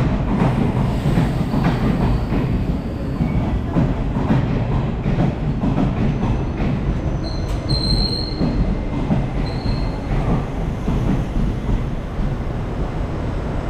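Passenger train coaches rolling past a platform as the train arrives, a steady rumble of wheels on the rails. About halfway through a short high squeal sounds, then briefly again a couple of seconds later.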